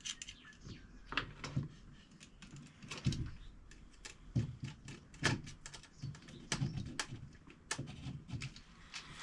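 Irregular small clicks and knocks of hands working on a plastic switch board, fitting wires into the terminals of a switch, an indicator and a five-pin socket.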